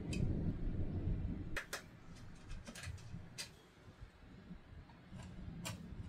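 A low rumble for about the first second and a half, then a scattered series of short, sharp clicks and taps.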